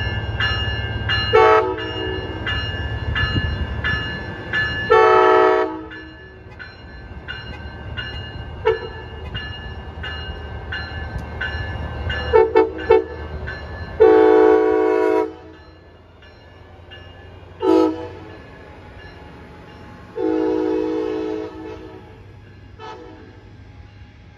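Diesel locomotive's air horn sounding a string of blasts, some short toots and some held over a second, the longest about halfway through. For the first five seconds a bell rings steadily at about two strokes a second over the low rumble of the train.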